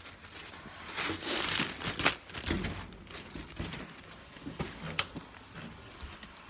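Rustling and handling noise from a phone being moved against clothing, loudest for about a second early on, with a couple of sharp clicks.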